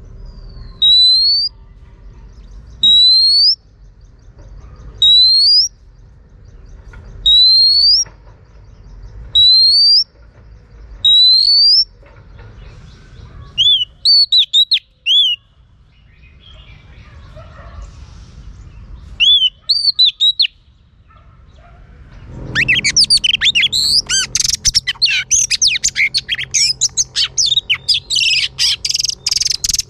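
Female oriental magpie-robin calling: a rising whistle repeated about every two seconds, then a few scattered short notes, and from about three-quarters of the way through a loud, fast stream of varied song notes.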